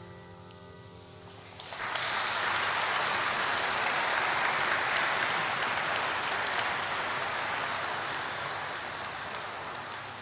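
The last held note of the song's music dies away, and a little under two seconds in the audience breaks into applause that slowly fades.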